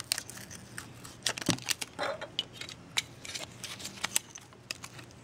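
Clear adhesive tape being pulled from its roll and handled by fingers: irregular crackles and sharp little clicks.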